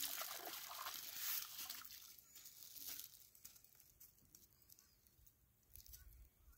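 A hooked fish splashing in shallow water at the shoreline as it is landed, dying away after about two seconds. A brief splash follows near the middle, then only faint small sounds.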